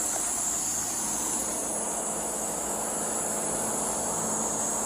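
Steady outdoor background from a police body-camera microphone: a constant high-pitched hiss over a faint low hum, with no distinct events.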